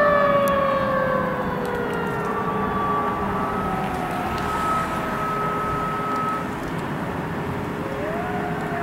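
Fire truck siren wailing in the distance: its pitch falls slowly, a steadier high tone holds for a few seconds in the middle, and the siren winds up again near the end, over traffic noise.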